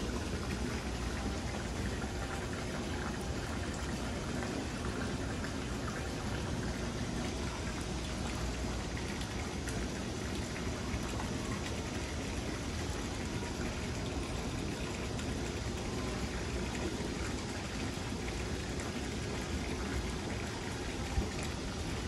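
Steady rush of moving water, an even splashing hiss with no break.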